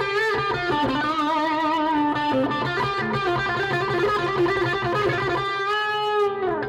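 Electric guitar with GFS pickups played through an amp, heard through a room mic: a single-note lead line of held notes with vibrato, ending on a long note that bends down in pitch near the end.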